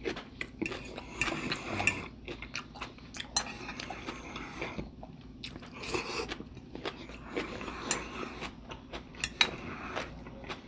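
Close-miked eating: a person biting and chewing food, with irregular crunches and wet mouth clicks.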